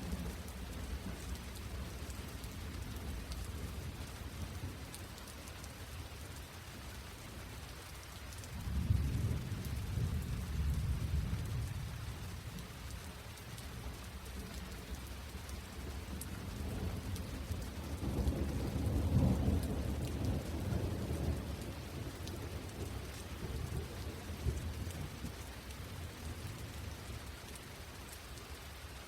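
Steady rain falling, with two low rumbles of thunder, the first about nine seconds in and the second about nine seconds later, each lasting a few seconds.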